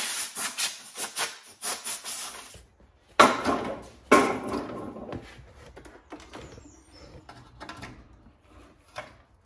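Rough metal scraping for about two and a half seconds as a hand cutter enlarges a hole in the steel engine mounting plate. Then come two loud clunks about a second apart and lighter knocks and rubbing as the V-twin engine is set down and shifted on the plate.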